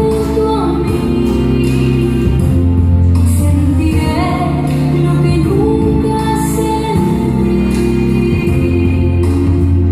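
A woman singing a slow song in long held notes over backing music with a steady bass line: a musical number in a stage production.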